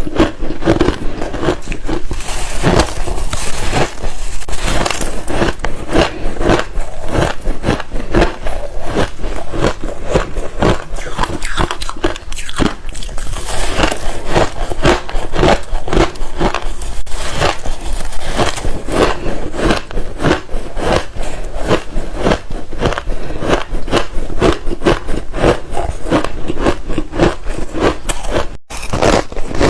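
Ice being bitten and crunched close to the microphone: a dense, unbroken run of sharp crunches, several a second, with a split-second dropout near the end.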